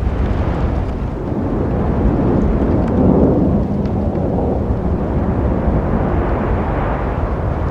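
Road traffic noise: a steady rumble of passing vehicles and tyres, swelling loudest as one vehicle passes about three seconds in, then building again near the end.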